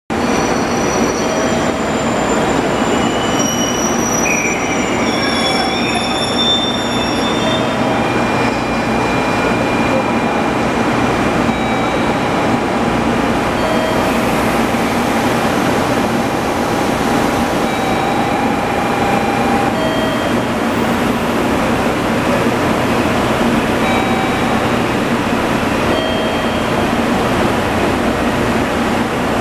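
DE10 diesel-hydraulic locomotive idling at a platform: a steady, loud engine noise. Thin high squeals come and go through the first several seconds.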